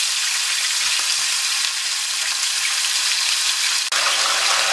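Two whole trout frying in very hot oil in a pan: a steady sizzle, with a momentary break about four seconds in.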